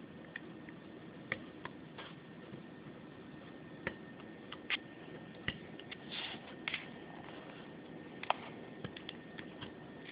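Hobby-knife blade scraping shellac off a solar laminate's metal bus bar to clean it for soldering: faint, irregular scratches and ticks, with one longer scrape about six seconds in.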